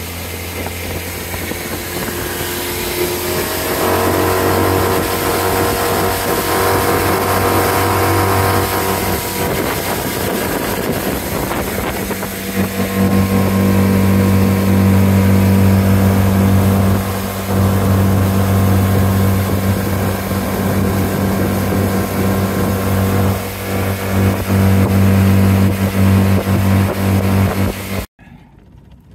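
Outboard motor pushing a small aluminium fishing boat across a lake, running steadily. It gets louder about four seconds in and again about twelve seconds in, then cuts off abruptly near the end.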